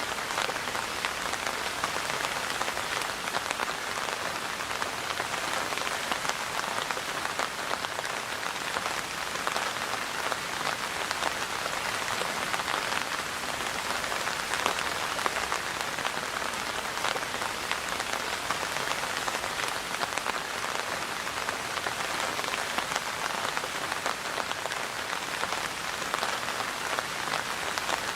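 Steady rain falling, a dense even hiss of drops striking a surface with many small individual drop ticks.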